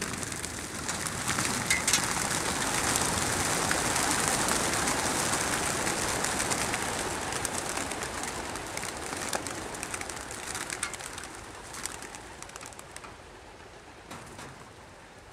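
A flock of racing pigeons taking off together from a transport trailer's crates: a dense flutter of many wingbeats with sharp wing claps, swelling over the first few seconds and then fading as the birds fly away.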